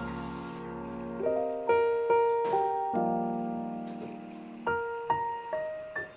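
Background music: a solo piano, a sustained chord fading away, then single notes played slowly.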